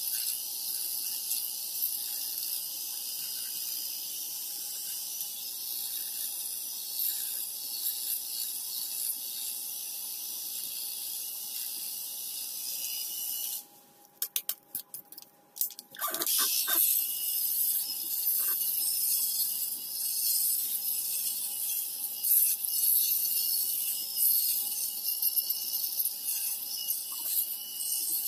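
ENCHEN Blackstone 3 rotary electric shaver running against beard stubble, a steady high buzz over a faint motor hum. A little before halfway it is switched off, with a few clicks of handling, and about two seconds later it is switched on again.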